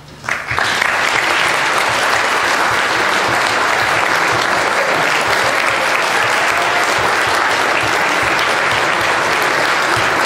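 Audience applause, breaking out abruptly about half a second in and going on steadily and loudly.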